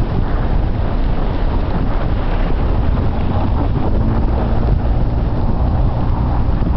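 Wind buffeting the camera microphone in a snowstorm: a loud, steady low rumble. About four seconds in, a steady low hum joins it.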